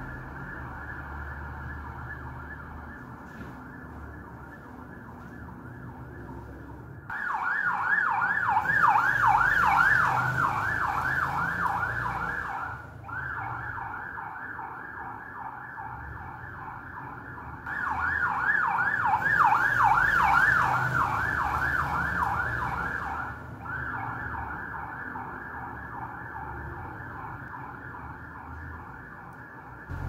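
Night watchman's whistle sounding a shrill, rapidly warbling tone in two loud stretches of about five seconds each, with a steadier, quieter shrill tone between and around them.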